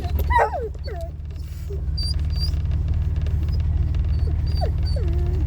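Dingo-hybrid dog whining in short calls that slide down in pitch, over the steady low drone of a 2004 Jeep Wrangler running.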